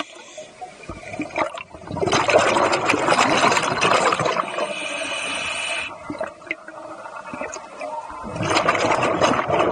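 Scuba diver breathing underwater through a regulator: two long gurgling rushes of exhaled bubbles, the first about two seconds in and the second near the end. A steady whine sounds between them.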